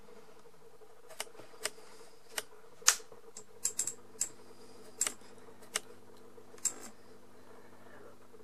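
20 W fluorescent lamp circuit clicking sharply and irregularly, about a dozen clicks, as it tries to start an end-of-life tube. About three and a half seconds in, a low mains hum from the ballast sets in as current flows and one end of the tube lights.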